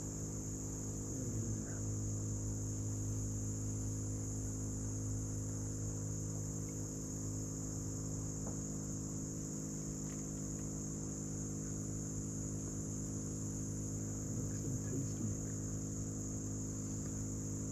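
A steady, high-pitched chorus of insects, with a steady low hum underneath.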